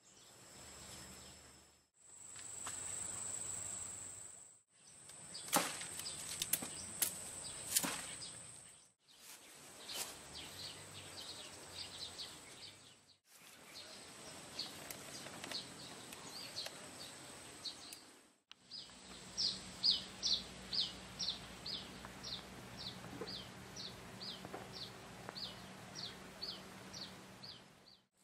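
Outdoor garden ambience in short edited segments: a steady high insect drone, a few sharp clicks between about six and eight seconds in, and in the last third a bird giving short chirps about twice a second.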